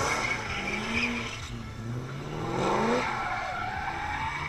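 Car engine revving hard in rising surges while the tyres spin and squeal through a smoky drift. One long climbing rev runs through the first half, and a shorter one comes about three seconds in.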